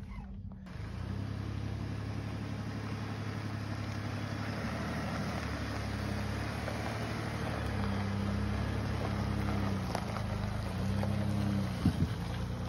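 Ford pickup truck's engine running steadily at low revs under load as it tows a boat on its trailer up a gravel launch ramp. A brief knock sounds near the end.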